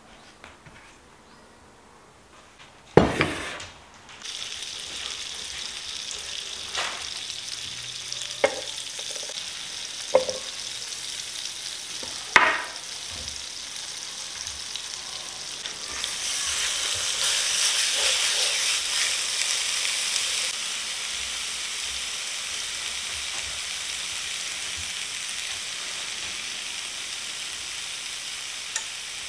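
Pork steak frying in a hot pan: a loud knock about three seconds in, then a steady sizzle with a few sharp taps. The sizzle swells louder for a few seconds past the middle, then settles.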